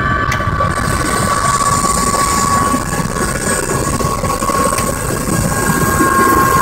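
Helicopter turbine and rotor heard from inside the cabin: a steady high whine over a dense low rumble.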